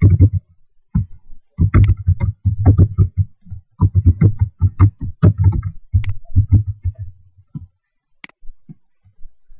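Typing on a computer keyboard: quick runs of keystrokes with short pauses, each key with a low thud. Near the end the typing thins to a few single clicks.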